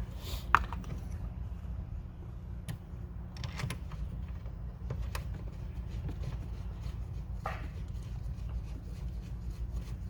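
Metal parts being handled during an oil catch can install: a sharp click about half a second in, a few light knocks, then a run of faint quick ticks near the end, over a steady low hum.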